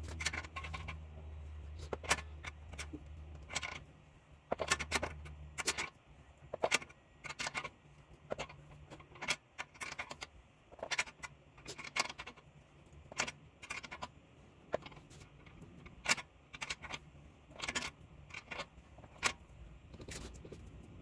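Sharp metallic clinks and rattles, roughly one a second at uneven spacing, from hand tools and a jack working on a car's sway bar end link. A low steady hum fades out about six seconds in.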